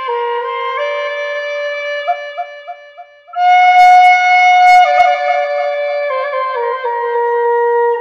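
Native American flute playing a slow melody of held notes that step between pitches, with four quick repeated ornament notes about two seconds in, a brief dip, then a louder, breathy high note that steps back down to lower notes.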